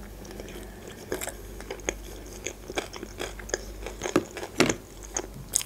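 Close-miked chewing of a mouthful of crumb-coated sushi rolls: irregular wet crunches and mouth clicks, with a louder crunch or knock about four and a half seconds in.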